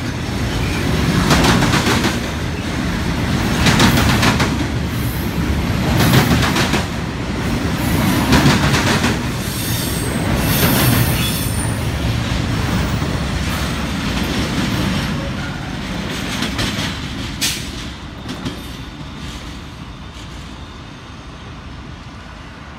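Union Pacific double-stack container train rolling past, its well cars' wheels clattering in a burst about every two and a half seconds over a steady rumble. The sound fades over the last few seconds as the end of the train goes by.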